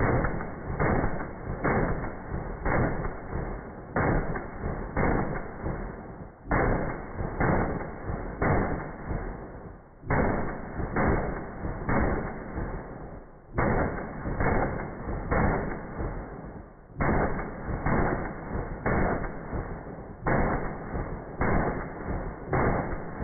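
Rapid gunshots from a short-barreled AR-15 rifle in .223/5.56 with a Franklin Armory BFS3 binary trigger, slowed down. About one and a half shots a second come in strings of several, with short breaks between strings.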